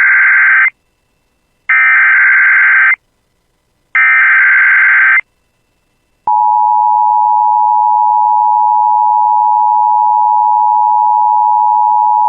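Emergency Alert System SAME header: three loud bursts of buzzy digital data tones, each about a second long and a second apart. About six seconds in, the steady EAS attention tone starts and holds unbroken.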